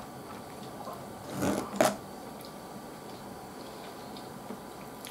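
A short rustle and then one sharp click about two seconds in, from chopsticks knocking against tableware, over a low steady room hum.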